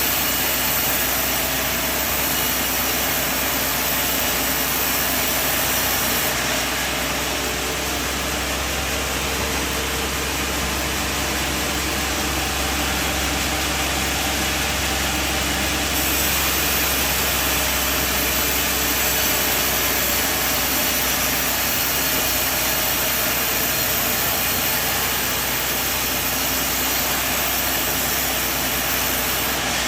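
Sawmill machinery running steadily, a constant machine noise with a low hum underneath.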